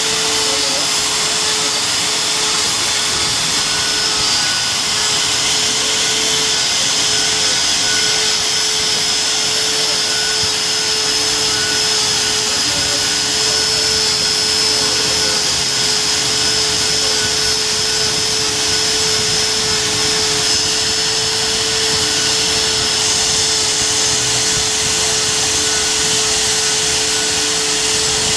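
Grinding machine grinding the teeth of a pinion gear: a steady hum and high whine over an even hiss, running at a constant level without a break.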